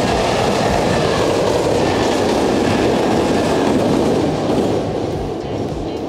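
A six-car Kintetsu Minami-Osaka Line electric train passing over the Yamato River railway bridge, its wheels clattering over the rail joints. The rumble is loud and steady, then starts to fade about four and a half seconds in.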